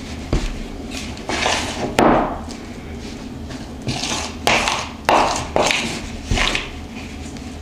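A metal spoon scraping and knocking against a ceramic bowl while stirring flour into a stiff yeast dough, in irregular strokes with a few sharper clicks.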